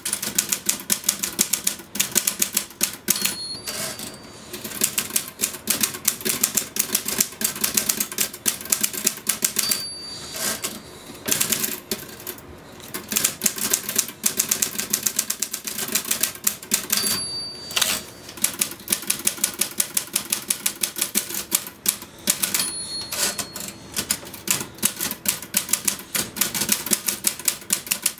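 Typewriter being typed on fast, in dense runs of key strikes. Every several seconds a short high ding sounds and the typing breaks off briefly before carrying on.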